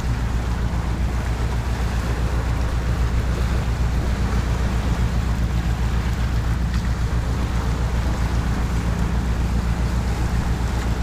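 Wind buffeting the microphone in a steady low rumble, over waves washing against rocks on a flooding tide.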